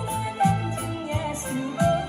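A female-sung Taiwanese Hokkien ballad played through a Xiaomi XiaoAi Speaker Art smart speaker. A steady beat lands about every 0.7 seconds under the sung melody.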